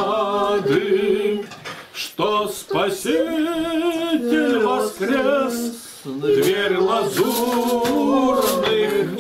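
A man singing unaccompanied, holding long notes with a slight waver, alongside some clinking of cutlery and dishes.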